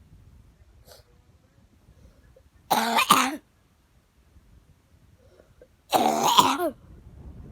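A person coughing hard, two harsh coughing fits about three seconds apart, each lasting well under a second.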